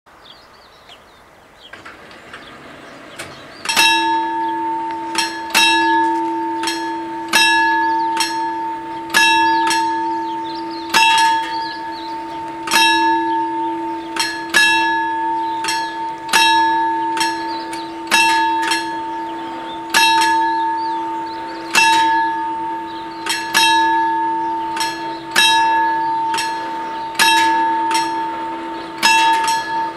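Warning bells of an Italian FS 64 level crossing start ringing about four seconds in. They give a loud clang roughly every two seconds, and each clang's tone rings on until the next, with an occasional second strike close behind. The bells signal an approaching train as the barriers come down.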